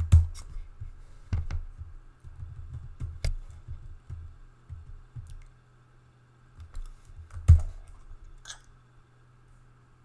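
Irregular keystrokes on a computer keyboard while editing text, scattered clicks and soft thumps coming in small clusters, the loudest about seven and a half seconds in.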